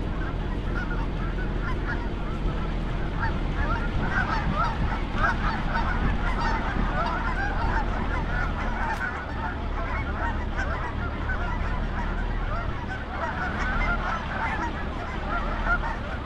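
A large flock of geese honking, many calls overlapping into a continuous clamour.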